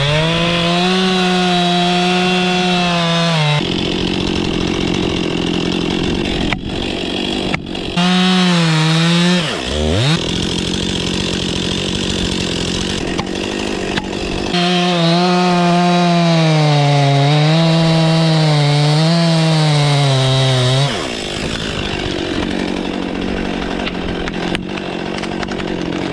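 Stihl MS261 C two-stroke chainsaw revving at full throttle through a cut three times: a short burst at the start, a brief one about eight seconds in, and a long one of about six seconds near two-thirds of the way. The pitch sags slightly as the chain bites into the spruce trunk, and the saw drops back to a lower running note between the cuts.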